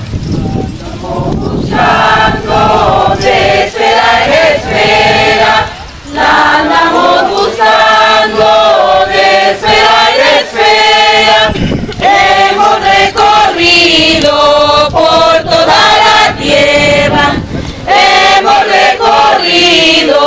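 A mixed group of men and women singing a Spanish-language song together, in phrases of a few seconds with short pauses for breath between them.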